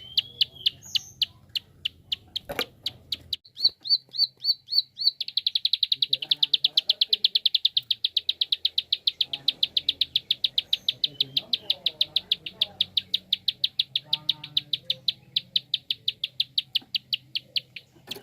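Prenjak (prinia) giving its fast 'klik' clicking call: a high, sharp note repeated about four times a second, then from about five seconds in speeding up into a fast rattling run of clicks. A single knock sounds about two and a half seconds in.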